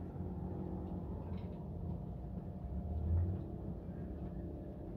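Low, steady diesel engine rumble from a 00 gauge model diesel locomotive running, swelling briefly about three seconds in.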